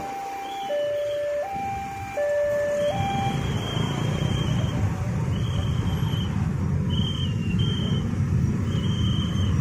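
Two-tone hi-lo siren alternating between two pitches about every 0.7 s for roughly the first three seconds. It gives way to a steady low vehicle rumble with short high beeping tones repeating over it.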